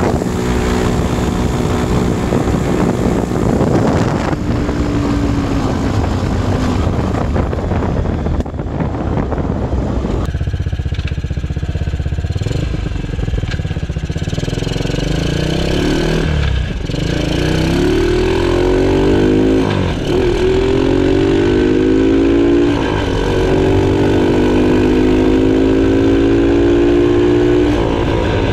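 Mini monster truck's 454 cc Arctic Cat Bearcat engine running through a car muffler while driving on pavement. The first ten seconds hold a steady engine note with road and wind noise; after that the pitch climbs and drops back several times as it accelerates and shifts up.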